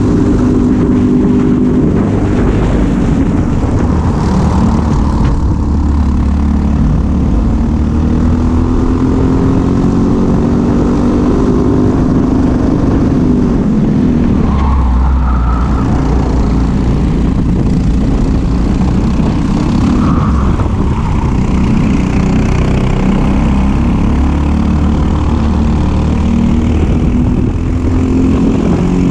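Briggs & Stratton LO206 four-stroke single-cylinder kart engine at racing speed, its pitch climbing as it accelerates and falling as it slows for corners, with a sharp drop in revs about halfway through.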